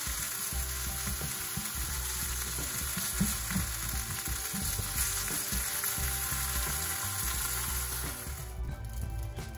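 Mixed vegetables (bell pepper, onion and carrots) sizzling steadily as they sauté in hot oil in a pan. The sizzle cuts off near the end.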